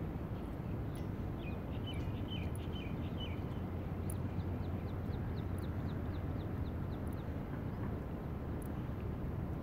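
Birds calling over a steady low background rumble: a cluster of chirps about one to three seconds in, then a quick run of short falling notes, about four a second, for a few seconds.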